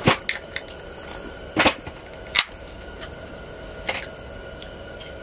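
Fingernail clicking and prying at the pull tab of an aluminium drink can, a string of sharp clicks and snaps with the loudest, sharpest snap about two and a half seconds in, over a steady background hum.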